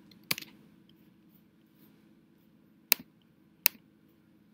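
A few single sharp computer mouse clicks, spaced a second or more apart, over a faint steady room hum.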